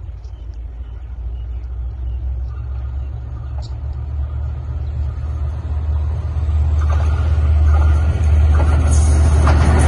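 Sri Lanka Railways M11-class diesel locomotive hauling a passenger train on approach: a low engine rumble that grows steadily louder, with a broader clatter and hiss swelling in from about seven seconds in as it nears.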